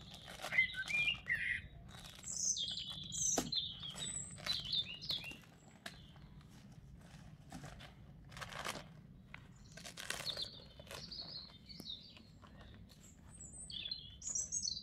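Garden birds chirping and singing in short calls, together with irregular rustling and crinkling of a deflated vinyl swim ring being unfolded and handled.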